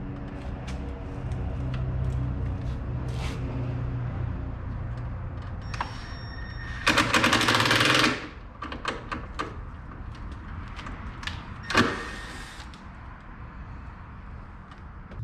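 Parts being fitted by hand on a car's front end: scattered clicks and knocks of plastic and metal pieces. A steady low hum runs underneath and stops about eight seconds in, a loud harsh burst lasts about a second just before that, and a sharp knock comes about twelve seconds in.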